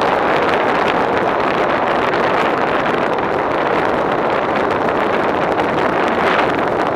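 Steady rushing noise of air over the onboard camera of a small aircraft in flight, with no clear engine tone.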